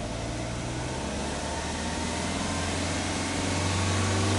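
Exhaust of a Subaru Legacy Touring Wagon 2.5GT's turbocharged 2.5-litre flat-four, heard at the twin tailpipes, revving in place. Engine speed climbs slowly and the note grows louder toward the end.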